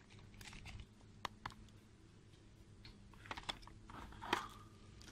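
Shop-floor background: a low steady hum with scattered light clicks and rustles, the loudest click about four seconds in.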